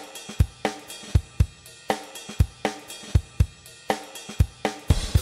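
Intro music led by a drum kit playing a steady beat with cymbals. Near the end the drums break into a quick run of hits.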